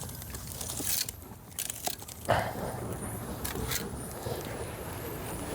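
A steady low outdoor rumble with a few sharp clicks and knocks scattered through it.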